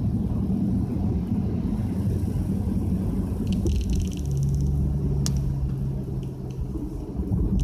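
Inside a Nissan Y50 Fuga 350GT driving on a rain-soaked road: a steady low rumble of tyres and engine. A steady drone joins in for a few seconds past the middle, and there are a few light clicks.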